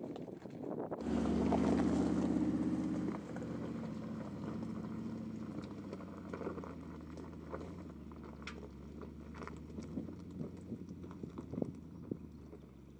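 Mercedes-Benz G500's twin-turbo V8 working at low speed on rocky ground. It starts abruptly about a second in and is loudest for about two seconds, then settles to a lower steady drone, while stones crunch and click under the tyres.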